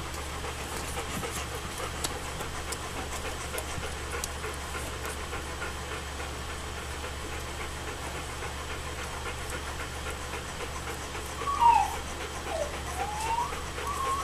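Alaskan Malamute puppies nursing, with faint smacking ticks for most of the stretch. About eleven seconds in, a puppy starts whining in short high squeaks that slide up and down, the loudest sound here.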